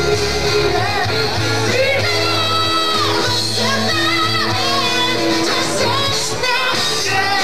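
Rock band playing live, with electric guitars, bass and drums under a high, sliding lead vocal.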